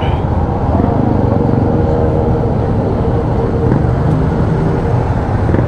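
Motorcycle engine running while riding, under a heavy, steady wind rumble on the microphone, with a faint engine tone holding steady through the middle.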